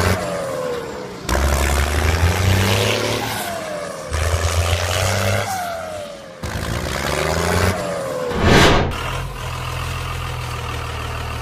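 A tractor engine runs and revs in short pieces joined by abrupt cuts every two to three seconds, its pitch falling after each rev, over splashing water.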